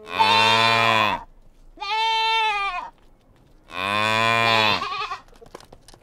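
Cattle mooing: three calls of about a second each, the middle one higher-pitched.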